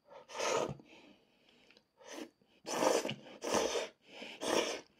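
A man eating nabeyaki udon with chopsticks: about five short, hissing slurps of hot noodles, with chewing in between.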